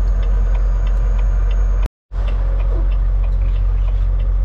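Semi truck's diesel engine running steadily, heard from inside the cab as a constant low drone with faint light ticks over it. The sound cuts out completely for a split second about two seconds in, then the same drone carries on.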